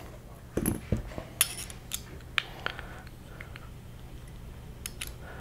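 Light handling clicks and knocks of a metal RC-car center differential and a hex driver on a workbench, with the driver fitted into the diff case screws. There are a couple of dull thumps about a second in, then scattered sharper clicks.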